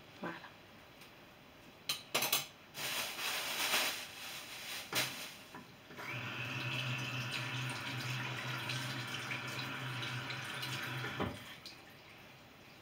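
Water running from a tap for about five seconds with a steady low hum in the pipes, then shut off abruptly. Before it come a few seconds of short, noisy splashes and clatters.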